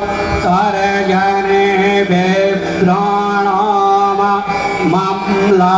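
A man's voice chanting a Sanskrit Hindu mantra, a meditation verse to the goddess Durga, in long drawn-out melodic notes, into a handheld microphone.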